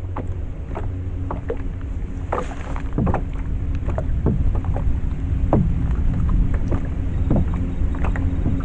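Water lapping and slapping irregularly against a kayak's hull, many short plops, over a low wind rumble and a faint steady hum.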